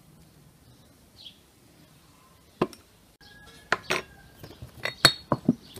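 A handful of sharp clinks and knocks of kitchenware, starting about two and a half seconds in: a metal spoon against the glass mixing bowl and set down on a wooden board, and a small glass jar picked up. One clink rings briefly.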